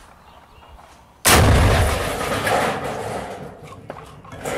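A single very loud blast close by about a second in, an RPG launch or explosion that raises dust, dying away over the next few seconds.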